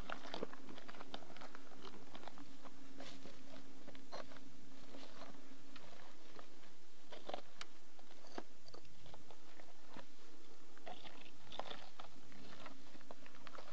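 Footsteps crunching over loose rock and dry grass: boots on stone give irregular crunches and scrapes.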